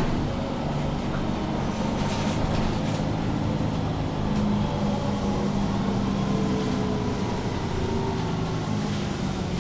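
Diesel engine of a MAN Lion's City G articulated city bus idling while the bus stands still, a steady low hum.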